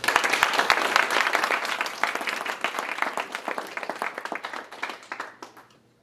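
Audience applauding: loud clapping breaks out all at once and dies away over about five seconds.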